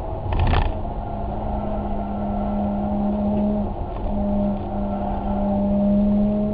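Car engine running at a steady note that dips briefly a little past the middle, with a short clatter of knocks about half a second in.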